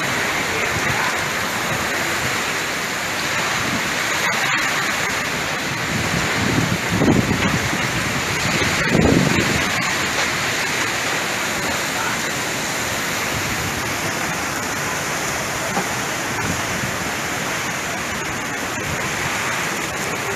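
Heavy rain pouring down in a summer storm: a dense, steady hiss that swells briefly twice, about a third and nearly halfway through.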